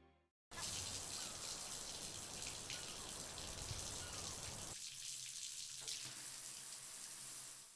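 Water running from a chrome bathroom tap into a basin. It starts abruptly about half a second in and then runs steadily.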